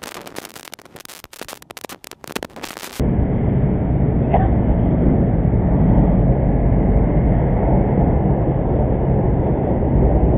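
Dense clicking and crackling as heard by an underwater camera. About three seconds in it cuts to a loud, steady low rumble of wind buffeting the microphone above the water.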